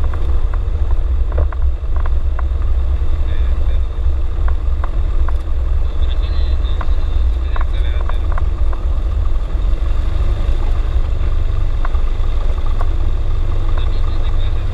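Cessna 172's single piston engine and propeller running at low taxi power, a steady low drone as heard from inside the cockpit.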